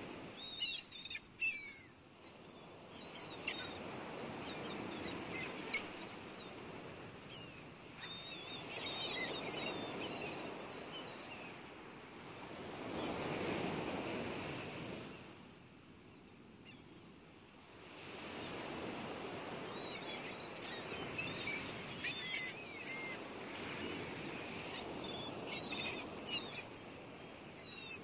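Birds chirping and calling in short clusters over a rushing surf noise that slowly swells and fades. The surf is loudest about halfway through and the birds are quieter in the middle.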